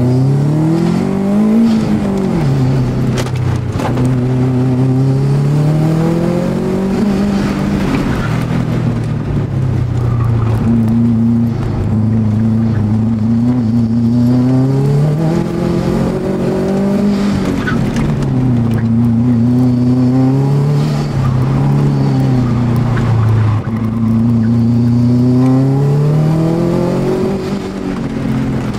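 Car engine heard from inside the cabin during an autocross run, its revs climbing and dropping every few seconds as the driver accelerates and lifts between cones.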